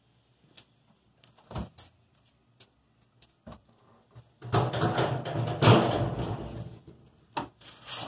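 Handling noise: a few light clicks and knocks, then about two and a half seconds of rubbing and scraping, and two more knocks near the end.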